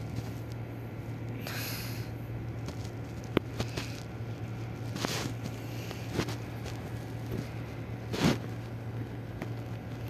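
A steady low hum with scattered short clicks and knocks, the loudest a thump about eight seconds in; no siren.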